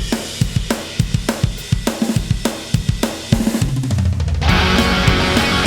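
Rock music: a drum kit plays a steady beat with kick, snare and cymbals, and about four and a half seconds in distorted guitars and bass come in loud.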